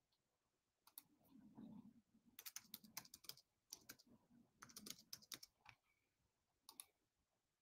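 Faint computer keyboard typing: irregular runs of keystrokes in short clusters.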